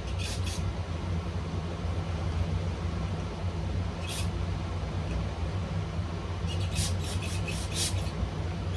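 Short squirts from an aerosol can of cleaner being sprayed into the carburettor's jets and passages to clean them out: two quick squirts at the start, one about four seconds in, and a rapid run of short squirts near the end. A steady low hum runs underneath.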